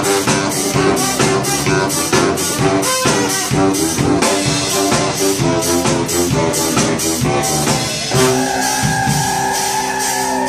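A brass band plays an up-tempo tune: sousaphone, baritone saxophone, trombones, trumpet and alto sax over a drum kit keeping a fast, even beat of about three to four hits a second. About eight seconds in, the drums drop back and the horns hold long notes.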